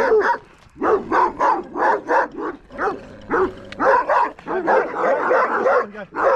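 A white Akbaş livestock guardian dog barking at close range, a fast run of about three barks a second with a short pause just under a second in.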